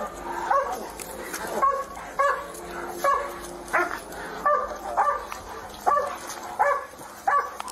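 Police dog barking repeatedly, about ten short barks, one every three quarters of a second or so.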